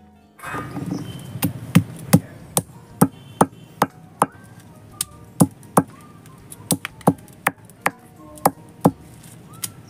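Stone roller (nora) pounding dry-roasted whole spices on a grooved stone grinding slab (shil), crushing them for biryani masala: sharp stone-on-stone knocks, about two a second, starting about half a second in.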